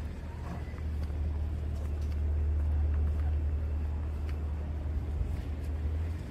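Steady low rumble of a motor vehicle, cutting off suddenly near the end.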